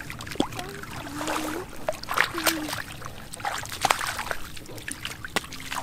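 Splashing and sloshing in shallow muddy water as a child wades and snatches at fish by hand, with a run of sharp splashes, loudest in the middle.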